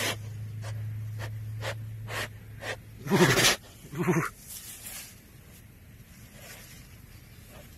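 Tigers chuffing in greeting: two loud breathy, buzzing puffs about a second apart, around three seconds in, with softer short sounds before them.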